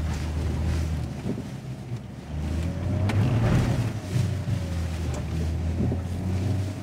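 Ineos Grenadier's engine pulling under load, heard from inside the cabin, as the 4x4 climbs a steep off-road slope with its rear differential locked. The low engine note swells around the middle, with a single knock about three seconds in.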